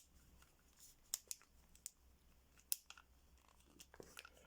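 Light, scattered clicks of a Halfords Advanced four-wheel combination bike lock's numbered thumb wheels being turned to set a guessed code, half a dozen ticks spread a fraction of a second to a second apart, over a faint low hum.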